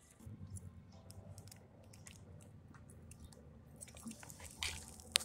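Cardboard mascara box handled close to the microphone: scattered small clicks and crinkles over a low rumble, with one sharp click near the end.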